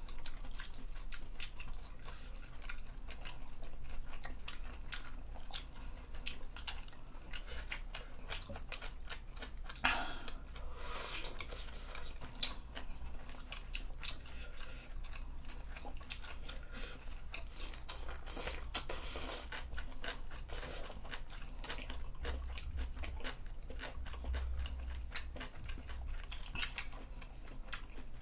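Close-up eating sounds of two people chewing and crunching a seafood stew with rice and kimchi: many short clicks and smacks, with a couple of longer, louder crunching stretches about ten and nineteen seconds in.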